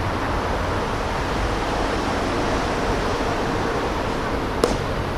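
Steady rushing wind noise on the microphone, with a single sharp crack a little before the end.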